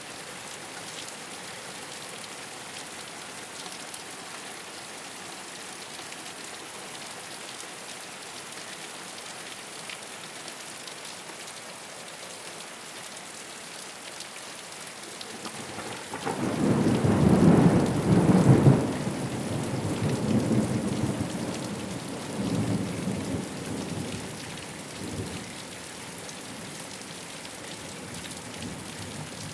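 Steady rain falling on a rooftop. Just past halfway, a roll of thunder breaks in, loudest for about two seconds, then rumbles on in weaker waves and fades away.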